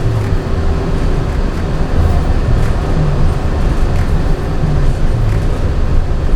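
Walt Disney World monorail running, heard from inside the cabin: a steady rumble with a low drive hum that shifts in pitch.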